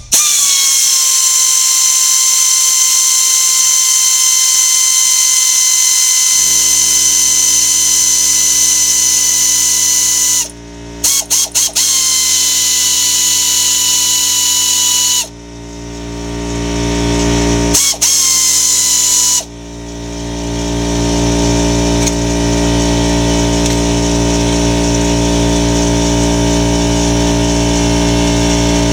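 A power tool running in long, loud runs with a steady high whine. It stops and restarts near 10 s, 15 s and 19 s, with a few short trigger blips around 11 to 12 seconds in. From about 6 seconds in, a low, evenly pulsing hum runs under it to the end.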